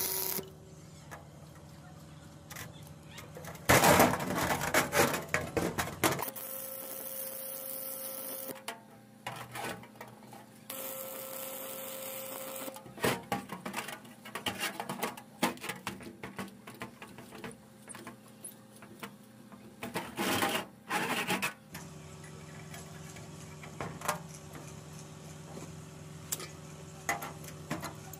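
Stick-welding arc crackling in several separate bursts, with metal clinks and knocks from steel parts being handled in between.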